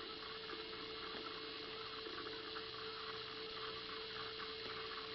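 Steady faint background hum with an even hiss and one constant tone, with no distinct events: room tone.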